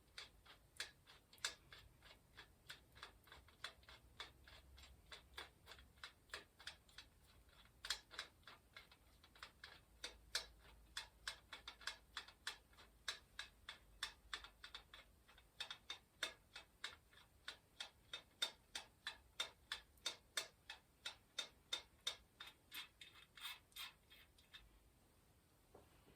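Bicycle freewheel on a Schwinn Continental II's rear wheel clicking steadily as its pawls ratchet, about three sharp clicks a second, stopping near the end.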